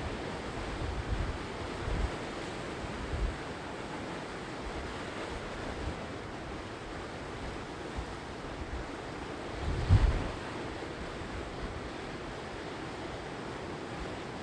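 Sea surf washing steadily onto the shore, with wind buffeting the microphone in short low bumps; the loudest comes about two-thirds of the way through.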